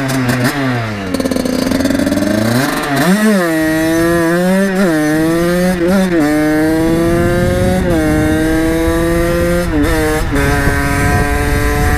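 50cc two-stroke supermoto engine accelerating hard, revving up through the gears: the pitch climbs, drops briefly at each upshift and climbs again several times. Near the end it eases off and runs at a steadier pitch.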